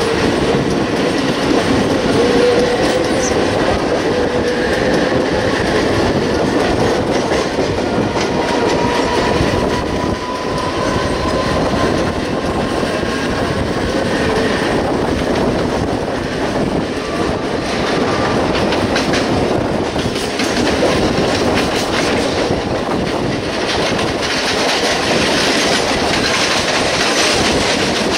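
Mumbai suburban electric multiple units running side by side, heard from the open doorway of one: steady wheel-on-rail running noise with clickety-clack over the rail joints, and a thin squealing tone in the first dozen seconds.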